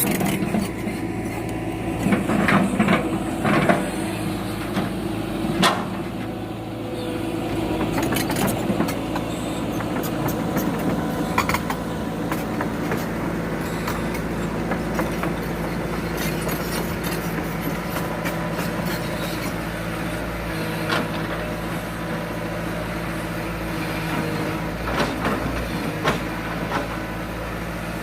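Heavy diesel machinery, most likely the excavator handling the logs, running steadily, with sharp knocks and clatters every few seconds, the loudest cluster about two to four seconds in.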